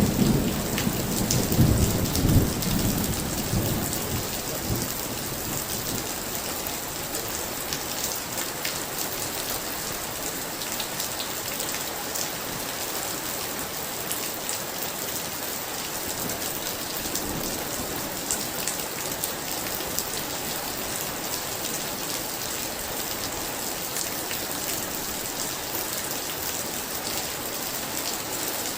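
Heavy rain falling steadily, with a low roll of thunder in the first few seconds that dies away, leaving the rain alone.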